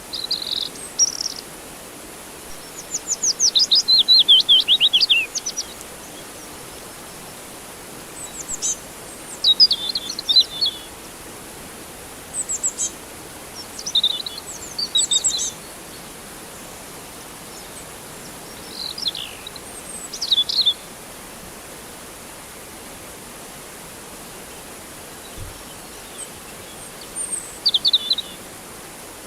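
Birds chirping in about six short bouts, including a rapid, falling trill lasting about three seconds near the start, over a steady rush of flowing water.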